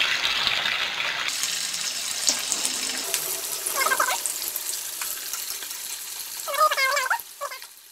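Chicken meatballs deep-frying in hot oil in a steel kadai: a steady sizzling hiss of bubbling oil that slowly dies down and drops off near the end.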